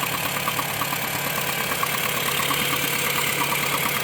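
Honda City 1.5 engine idling with a rapid, even ticking over the engine sound. This is the strange noise the car makes only when cold and shifted out of Park into gear, which goes away after about 40 s to a minute; the owner does not know its cause.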